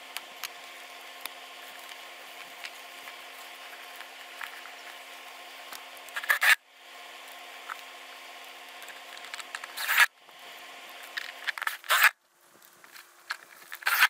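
Plastic house wrap and a plywood backer plate handled by hand: short rustling and scraping bursts, three of them louder, about halfway, two-thirds and most of the way through. A steady hum runs underneath and cuts off abruptly after some of the bursts.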